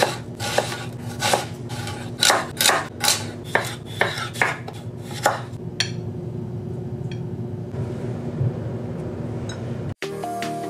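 Chef's knife chopping a red onion on a wooden cutting board: about fifteen sharp, irregular knocks over the first six seconds, over a low steady hum. The knocking stops, leaving only the hum, and music starts near the end.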